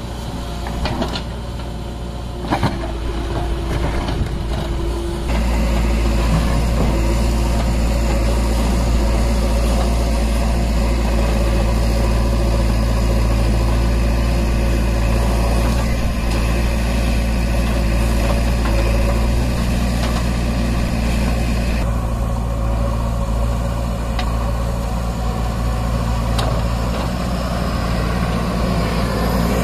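Diesel engines of a JCB 3DX backhoe loader and a tipper lorry running steadily while the loader digs and loads soil. A few sharp knocks come in the first seconds, and the engine hum gets louder about five seconds in.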